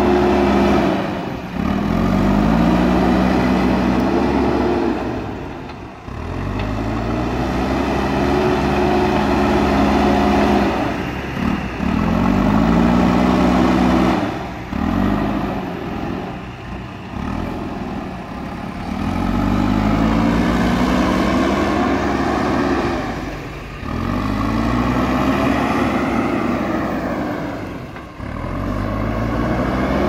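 JCB backhoe loader's diesel engine working hard, its pitch and loudness rising and falling in repeated surges every few seconds as the front bucket pushes and levels soil.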